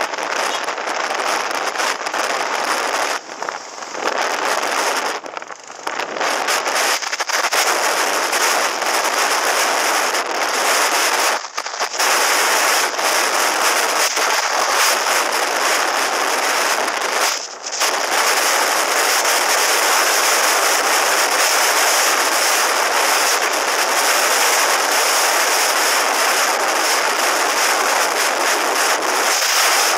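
Wind buffeting a helmet-mounted camera's microphone while riding a motorcycle at highway speed: a loud, constant crackling rush that briefly drops away a few times.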